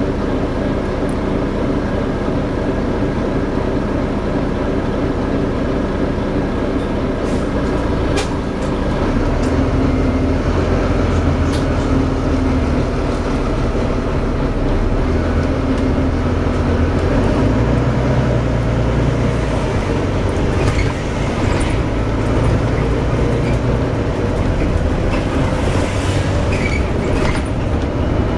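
Volvo B9TL double-decker bus running, heard from on board: a steady low drone from its 9-litre six-cylinder engine and driveline that grows louder about nine seconds in as the bus picks up, with scattered rattles and clicks. It carries the bus's bad axle noise.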